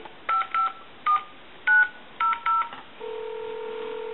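Harris TS22 lineman's butt set dialing out on a telephone line: six short touch-tone (DTMF) beeps in quick succession, then, about three seconds in, a steady ringback tone on the line lasting about two seconds as the called number rings.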